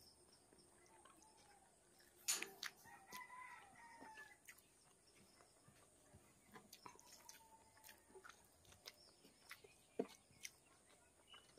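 Quiet eating sounds: fingers mixing rice and curry on a steel plate, with soft clicks and chewing. A faint bird call in the background from about two to four seconds in.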